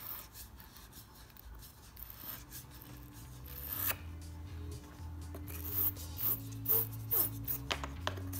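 Battery terminal brush twisted back and forth on a car battery's lead post, scraping off light corrosion. The scraping is faint at first, then comes as repeated short strokes that quicken toward the end.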